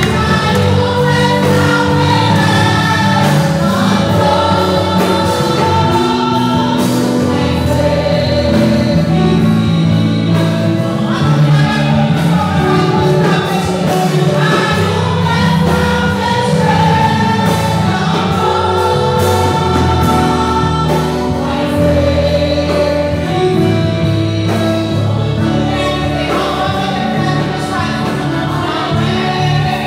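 Church congregation singing a gospel worship song together, loud and continuous.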